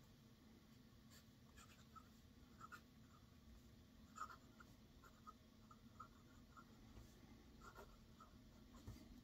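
Faint scratching of an 18-karat gold broad-nib fountain pen on lined paper as a line of handwriting is written, a run of short pen strokes with small ticks as the nib lifts and touches down.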